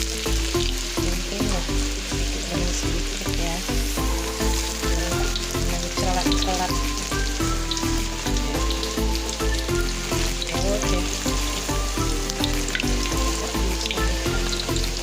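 Food frying in hot cooking oil, a dense steady sizzle that starts right at the beginning, over background music with a steady beat.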